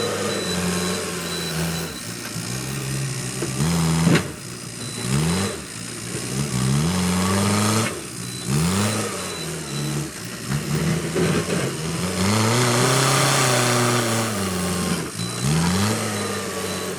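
Backhoe loader's diesel engine running, revving up and falling back again and again as the machine works, with one sharp knock about four seconds in.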